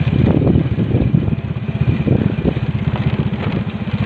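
Vehicle engine running steadily, a fast even train of low firing pulses.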